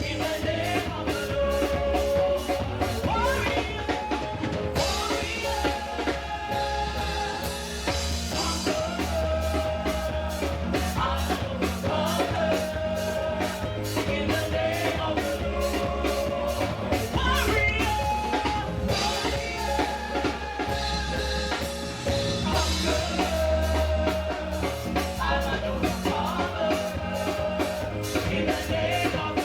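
Live gospel praise and worship music: singers over a band with drum kit, played continuously.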